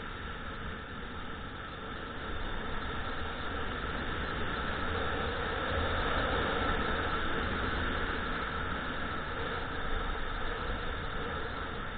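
Wind rushing over an action camera's microphone during a downhill ski run, with the steady hiss of skis sliding on groomed snow. It grows louder a couple of seconds in as speed picks up and eases a little near the end.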